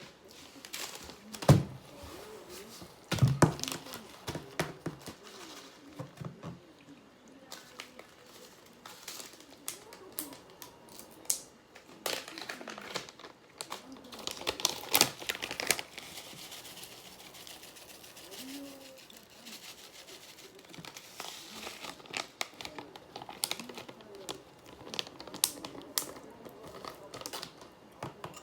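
Close-up eating sounds: chopsticks clicking and scraping against a plastic bento container, plastic crinkling and chewing, with two louder knocks in the first few seconds.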